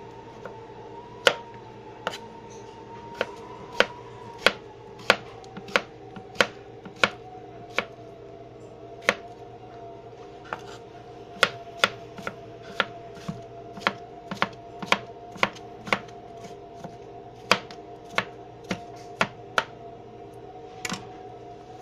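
Chef's knife dicing peeled cucumber into small cubes on a plastic cutting board: irregular sharp knocks of the blade on the board, about one or two a second. Under it runs a steady hum with a faint whine that drops slightly in pitch about five seconds in.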